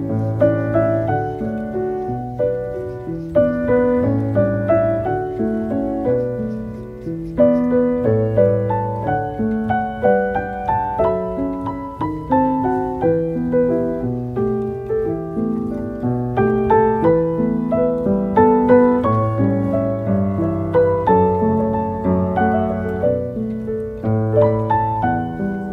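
Background piano music, a gentle melody of notes played one after another.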